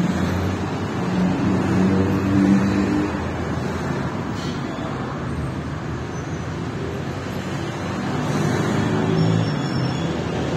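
City street traffic: a steady wash of car engines and tyre noise, with vehicles passing louder about two seconds in and again near the end.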